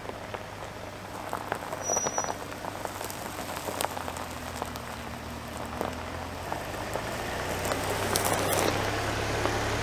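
A 2022 Toyota Tundra's engine hums low and steady while the tires crunch and crackle irregularly over the dirt trail as it creeps along off-road. It grows gradually louder toward the end.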